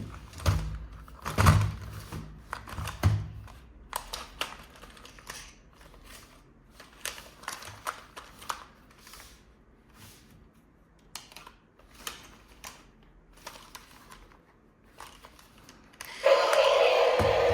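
Plastic toys being handled: irregular clicks, taps and a few heavier knocks, with the knocks strongest in the first three seconds. Loud background music cuts in about a second before the end.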